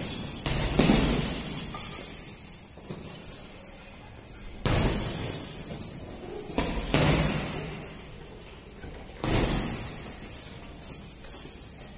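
Boxing gloves striking a heavy punching bag, several hard hits about two seconds apart, each setting the bag's hanging chains jangling as it swings.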